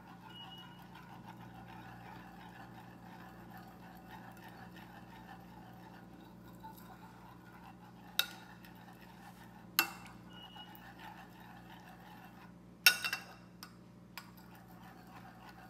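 Metal spoon stirring liquid agar jelly in ceramic plates, clinking sharply against a plate a few times: two single clinks in the middle and a quick cluster near the end. A faint low hum lies underneath.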